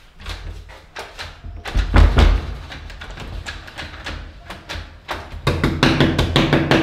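A jammed door being banged and shoved from inside, a series of knocks and heavy thumps with the door rattling in its frame, the loudest about two seconds in and a quick run of blows near the end.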